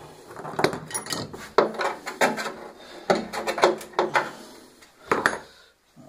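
Stainless-steel washing-machine drum being shifted and turned over by hand, its thin metal shell clanking and knocking in a string of sharp knocks, the loudest about a second and a half in.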